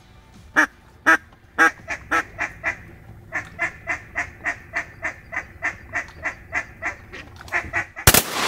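Duck quacking: three loud, spaced quacks, then a long steady run of about three quacks a second. Near the end, shotgun blasts break out in quick succession.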